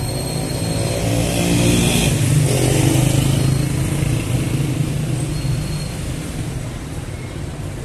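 Small motorcycle riding past close by: its engine grows louder over the first three seconds or so, then fades. Steady low rumble of street traffic underneath.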